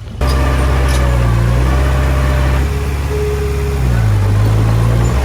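Heavy diesel engine of earthmoving machinery running loud and steady. Its note eases off around the middle and picks back up about a second later.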